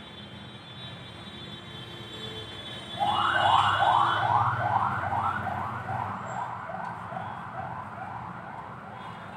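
Emergency vehicle siren: a rapid rising wail repeated about two or three times a second. It starts suddenly about three seconds in, is loudest just after, then fades away.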